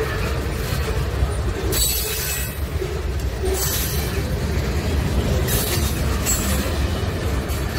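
Freight cars of a passing train rolling over the rails with a steady rumble. Several brief high-pitched squeals or hisses from the wheels come at about two seconds in and again around four, five and a half and six seconds.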